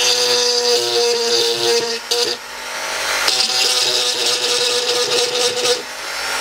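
Dremel rotary tool with a burr bit running at speed, grinding down the surface of a 3D-printed plastic model with a steady high whine. The sound dips briefly about two seconds in and again near the end as the tool's load changes.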